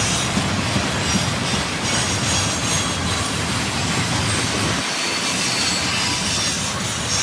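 Freight train of railway tank cars rolling past: a steady, loud noise of steel wheels running on the rails.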